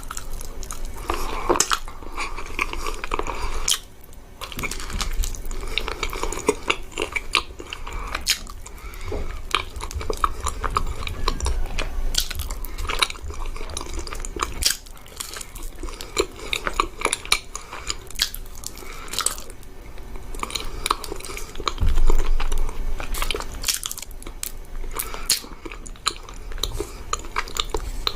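Close-miked eating of chocolate caramel profiteroles: repeated bites and chewing with many sharp, wet mouth clicks and some crunching.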